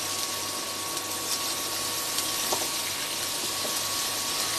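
Rice and vegetables frying in ghee in a steel pan as they are stirred: a steady sizzling hiss over a faint steady hum, with a light tap of the spoon against the pan about two and a half seconds in.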